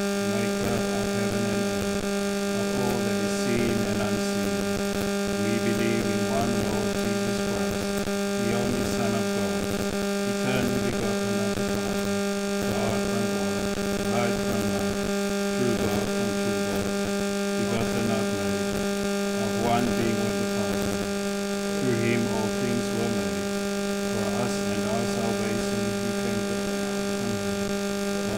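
Steady electrical hum with a pitched buzz and a stack of overtones running through the microphone feed, with a man's low voice speaking faintly underneath it.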